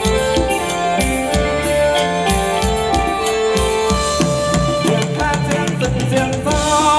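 Live band playing amplified Thai ramwong dance music: a steady drum beat under sustained held notes, with a wavering melody line coming in over the second half.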